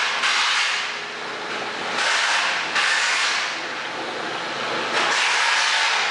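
Turbo-Disc six-pod backflushing disc filter running its backflush cycle: a loud rushing hiss that surges abruptly several times, a few seconds apart.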